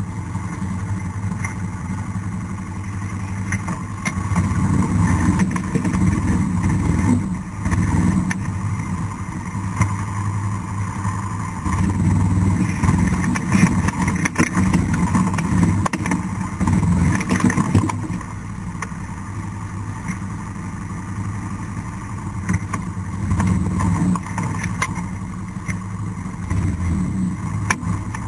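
ATV (quad) engine running as it drives through tall grass and brush, its note swelling and easing every few seconds with the throttle.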